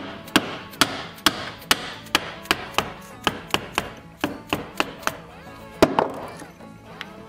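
Hammer blows on a steel punch, driving a small-engine ignition coil out of its iron laminations with the coil clamped in a bench vise. About fifteen sharp metallic taps come two or three a second, and one harder blow near the end.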